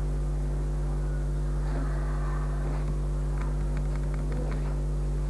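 Steady low electrical mains hum with background hiss. A few faint clicks and faint, indistinct voices come through in the middle.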